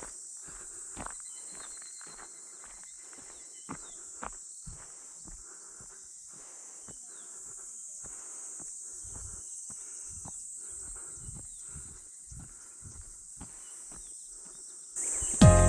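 Footsteps walking at a steady pace, about two steps a second, under a steady high insect chorus. Music comes in near the end.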